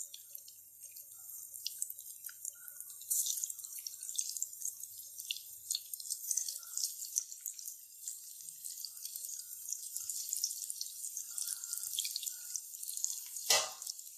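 Cabbage balls (kola urundai) deep-frying in hot oil in a kadai: a steady sizzle full of small crackles, growing denser about three seconds in as more balls go into the oil. A sharp knock near the end.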